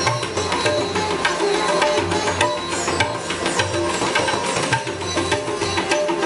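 Sitar and tabla playing together. The tabla keeps up rapid strokes, with deep bass-drum notes about every second, under a plucked sitar melody.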